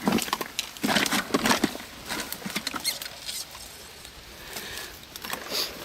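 Irregular rustling, crackling patter, dense in the first two seconds and thinning to scattered ticks after.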